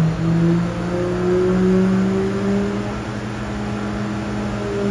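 Stroked 1551 cc Suzuki Hayabusa inline-four engine running on an engine dyno during its break-in and warm-up session. Its speed is held fairly steady, with a small rise in pitch about a second and a half in.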